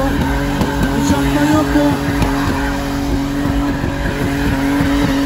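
Car engine held at steady high revs, one constant pitch, over a busy mix of other engine noise.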